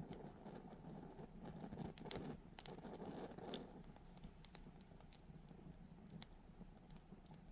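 Wood campfire crackling, with irregular small pops and snaps, busiest in the first half, over a faint low steady noise.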